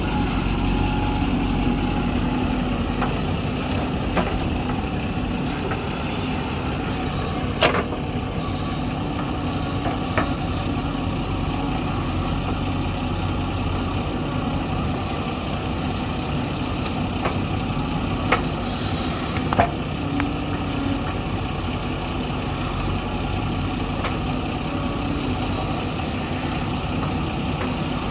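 Diesel engine of a backhoe loader running steadily while it loads soil, with a few sharp metallic clanks scattered through.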